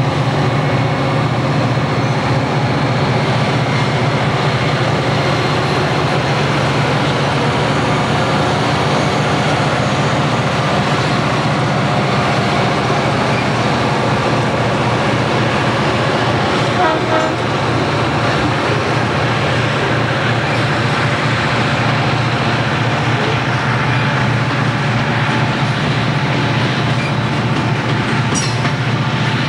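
EMD diesel locomotives pulling a coal train past at close range, their engines giving a loud, steady drone. There are a few sharp clicks near the end.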